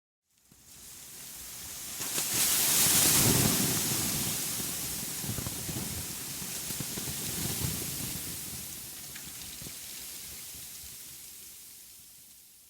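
Wind rushing through a forest. It builds to a strong gust about three seconds in, swells again briefly, then slowly dies away.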